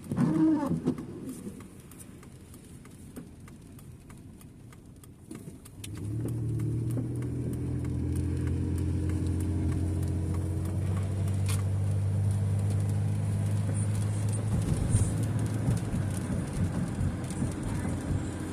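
Car engine running with a steady low hum that comes on about six seconds in, after a quieter stretch. A brief sound that bends up and down in pitch comes right at the start.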